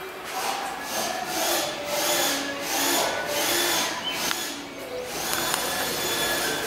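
Rhythmic rasping strokes of hand work on a workpiece, about two a second, then easing off into a steadier workshop hiss near the end.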